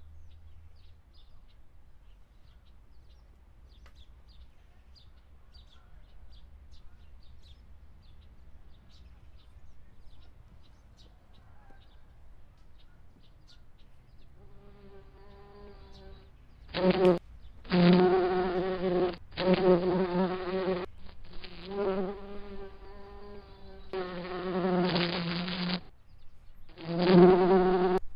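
Quiet outdoor ambience with faint high chirps, then from about halfway an insect's steady buzz, loud and close, that starts and stops in about six bursts.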